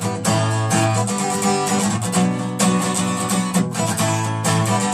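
Acoustic guitar strummed, its chords ringing on.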